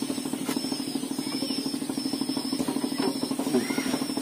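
A small engine running steadily at low speed with a rapid, even putter.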